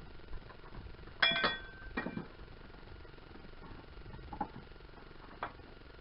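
Metal clinking as tools and engine parts are handled: a ringing clatter of several clinks about a second in, another clink a moment later, then a few fainter knocks.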